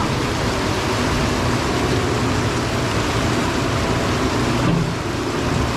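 JCB machine's diesel engine running steadily, with a continuous rushing noise over it.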